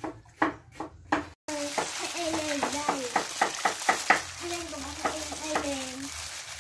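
For the first second and a half, rhythmic knocks about three a second. Then gloved hands squelch and squeeze wet grated coconut in a plastic basin: a continuous wet sloshing and squishing with small crackles from the plastic gloves.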